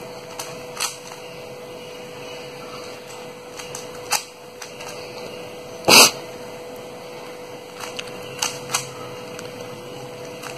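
Plastic 3x3 speed cube being turned quickly by hand to scramble it: irregular sharp clicks and clacks of its layers, the loudest about halfway through, over a faint steady hum.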